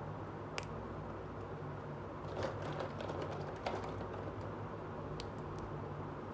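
Small hard plastic toy pieces clicking and tapping as they are handled and fitted together: a single click, then a run of clicks in the middle, and a few light ticks near the end, over a steady low hum.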